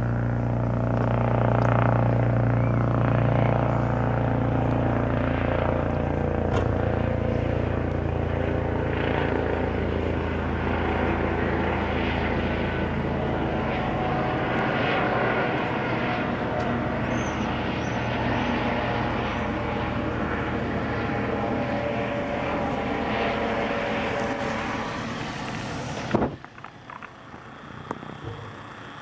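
Helicopter flying low overhead: a steady rotor and turbine sound with a strong low hum, slowly fading as it moves away. About 26 seconds in the sound drops away suddenly, leaving only faint background.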